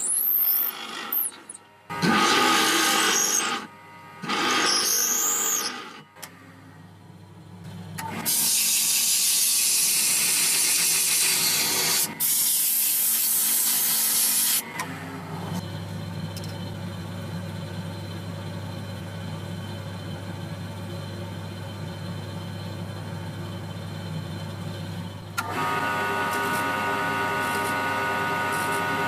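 Workshop power tools at work: several short loud bursts, then a hissing stretch of about six seconds. After that an electric motor runs steadily with a hum, growing louder and stronger in tone near the end.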